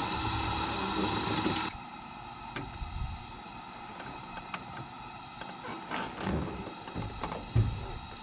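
Boat motor running steadily at trolling speed. About two seconds in, the sound drops sharply to a quieter steady hum with a few light knocks.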